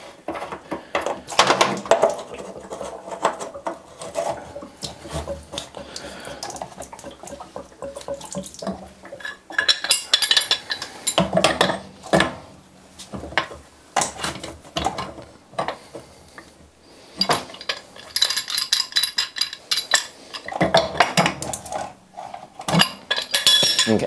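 Brass pipe fittings and a pipe wrench clinking and scraping at a water heater's drain port as a new 3/4-inch brass ball-valve drain assembly is screwed in and tightened. Irregular metallic clanks throughout, with busier runs of ringing clinks around the middle and near the end.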